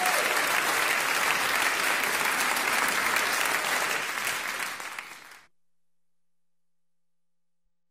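Crowd applauding, a dense steady clapping that fades over about a second and a half and stops abruptly about five and a half seconds in.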